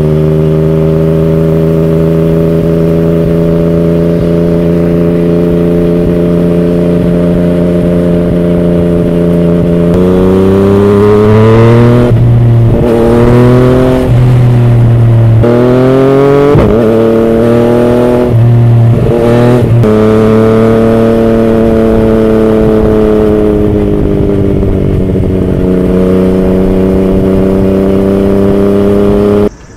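Yamaha MT-09's inline three-cylinder engine through an Akrapovic carbon full exhaust, heard from the rider's seat. It holds a steady cruising note, then about ten seconds in it revs up under throttle several times, the pitch dropping sharply at each gear change, before settling back to a steady cruise. The sound stops abruptly near the end.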